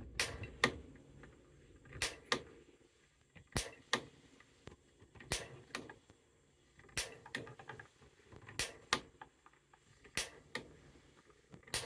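Piezoelectric igniter on a natural gas water heater's gas control valve, pressed repeatedly to light the pilot. Each press makes a sharp double click, about one press every one and a half seconds, eight times in all.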